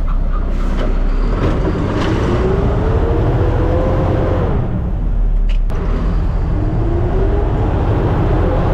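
Mack side-loader garbage truck running with a steady low rumble. Its engine pitch climbs, drops away about four and a half seconds in, and climbs again near the end.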